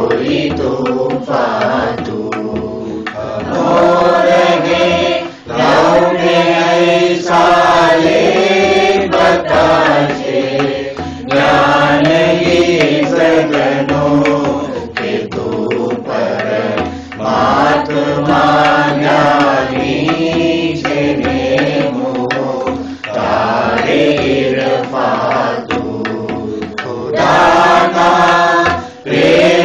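Voices singing a Gujarati devotional arati in long melodic phrases, each several seconds long, with short breaks between them.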